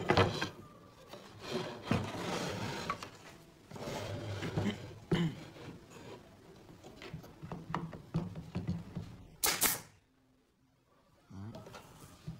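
Pine strips being shifted and slid on a wooden workbench, with a few sharp shots from a pneumatic nail gun fastening the corners of a triangular frame. The loudest shot comes about nine and a half seconds in.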